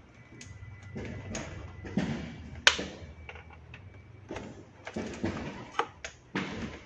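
Hands fitting a plastic cable tie around wiring and frame inside a motorcycle's front fairing: irregular rustling and plastic clicks, with one sharp click a little under three seconds in.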